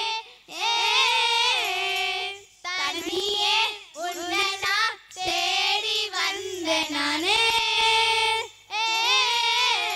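A group of girls singing a Tamil song together into microphones, in held phrases of one to two seconds broken by short pauses for breath.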